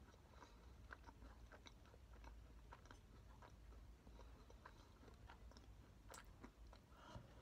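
Faint close-up chewing of a Pigbar (돼지바) macaron: soft, scattered mouth clicks and smacks as the bite is chewed, one a little louder about six seconds in.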